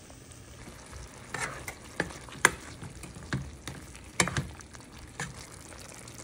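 Chicken livers and onions frying in a pan with a soft steady sizzle, while a utensil stirring them knocks and scrapes against the pan at irregular moments, about six times.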